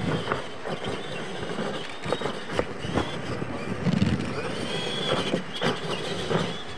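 Electric radio-controlled monster trucks running on a dirt track: their motors whine, rising and falling in pitch as the throttle changes, with several sharp knocks mixed in.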